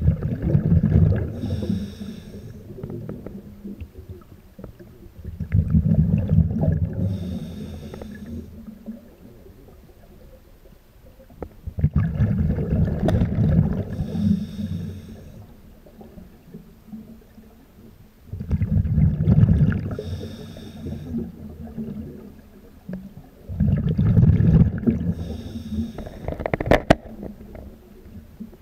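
Scuba diver's breathing through a regulator, heard underwater: five rounds of rumbling exhaled bubbles about every six seconds, each with a hiss from the regulator. One sharp click near the end.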